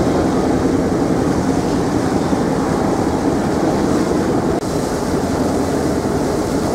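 Steady drone of a passenger ferry's diesel engines from the open deck, mixed with a rush of water along the hull. The level dips slightly about four and a half seconds in.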